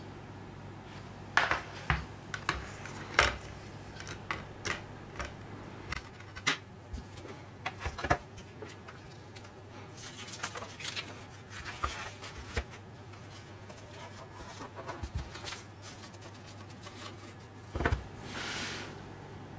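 Handling noise from a Blu-ray box set being put back together with gloved hands: a string of irregular clicks, taps and paper rustles from the plastic disc tray, paper inserts and cardboard case. Near the end the box knocks down onto the table and slides briefly. A steady low hum runs underneath.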